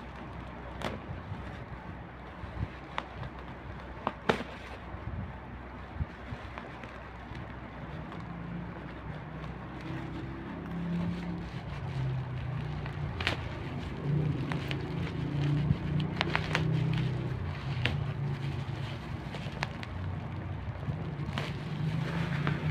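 Toy packaging being handled and opened: irregular sharp clicks and crackles of plastic and cardboard. A low, uneven hum joins about eight seconds in.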